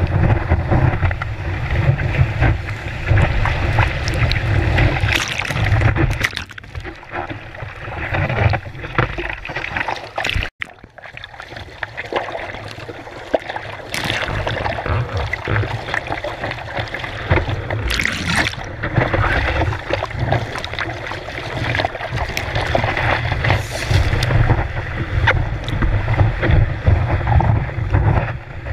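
Wind buffeting the microphone of a board-mounted action camera over the rush and spray of breaking whitewater as a surfer rides waves. The noise drops out sharply for a moment about ten seconds in, then the rushing builds again.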